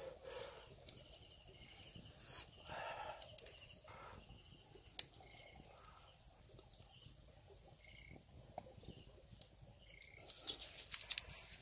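Quiet streamside outdoor ambience: a faint steady high insect drone, short chirps repeating every couple of seconds, and a few light clicks. A cluster of sharper knocks near the end comes as the flat stone lid over the fire is handled.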